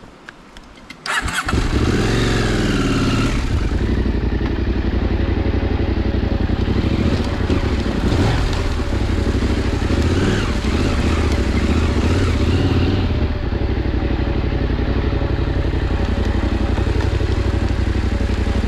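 KTM 890 adventure bike's parallel-twin engine starting about a second in, revving briefly, then running steadily as the motorcycle is ridden down a muddy track.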